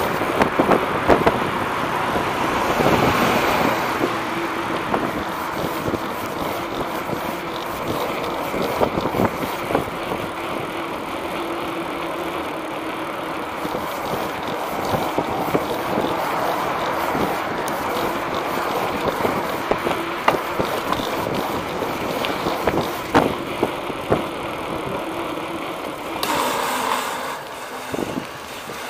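Skateboard wheels rolling along a concrete sidewalk: a continuous rolling rumble with sharp clicks as the wheels cross the joints in the pavement.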